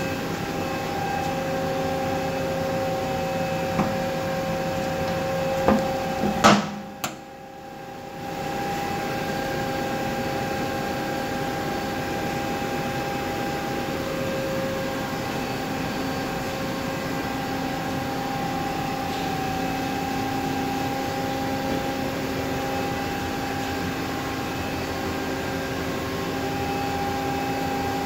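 Steady machine hum from a Hyd-Mech H14A automatic horizontal band saw under power: several steady tones over a low whir. A couple of sharp clicks come about six and a half seconds in, then the hum drops away briefly and returns.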